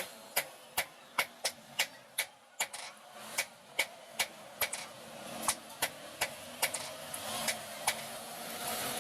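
Hand hammer striking hot metal on an anvil in a steady rhythm, about two to three blows a second.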